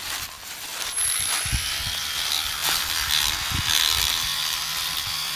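Battery-powered electric rubber-tapping knife running as it shaves a thin strip of bark along the tapping cut of a rubber tree, a steady mechanical buzzing and scraping that starts about a second in.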